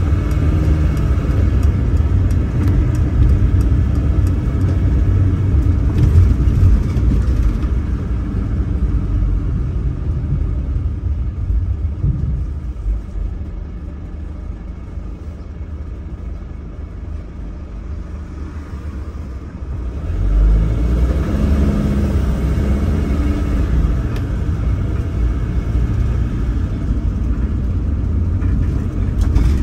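Bus engine and road noise heard from inside the cabin: a continuous low rumble that eases off for several seconds in the middle and picks up again about twenty seconds in.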